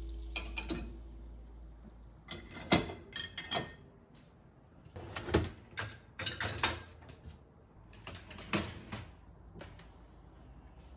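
Dishes and a glass being set into a dishwasher's wire racks, giving a series of sharp clinks and knocks in small clusters, with the racks rattling as they are slid in and out.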